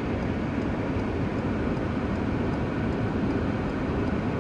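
Muddy floodwater rushing fast across a road, a steady, even rush of noise.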